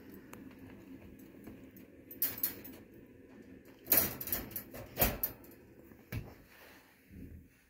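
Wire dog crate clanking and rattling as its door is swung shut, with a few sharp metallic knocks about two, four, five and six seconds in, the ones near four and five seconds loudest.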